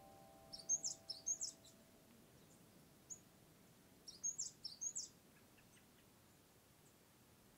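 A small bird chirping in quick, very high-pitched bursts: a flurry of chirps about a second in, a single chirp, then another flurry, over faint outdoor background noise.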